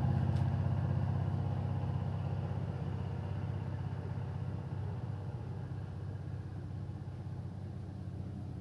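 An engine running with a steady low rumble and rapid even pulsing, slowly fading.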